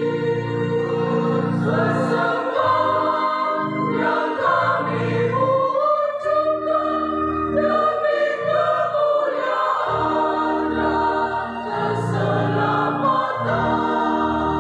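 Mixed church choir of men's and women's voices singing a hymn in Indonesian, in held chords that change every second or two.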